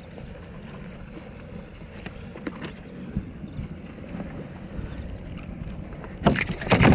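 Water moving against a fishing kayak's hull, with wind on the microphone and a few light knocks; a loud, short burst of noise comes near the end.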